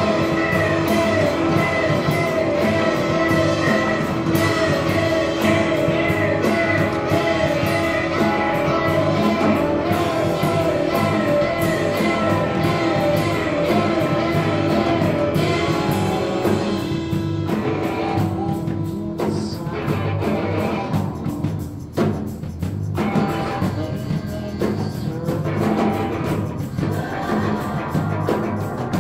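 Live rock band playing, with singing over guitar and drums. About halfway through, the held sung and played notes drop away, leaving a sparser part carried by the drums.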